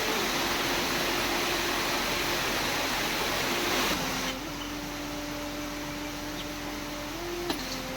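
Heavy rain falling as a steady hiss, dropping in level about four seconds in, with a faint steady hum beneath it.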